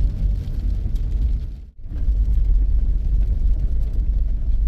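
Vehicle driving on a gravel-and-rock logging road, heard from inside the cab: a steady low rumble of engine and tyres. It drops out briefly about a second and a half in.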